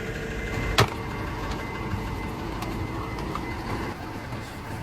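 An engine running steadily with a low rumble, and one sharp knock just under a second in.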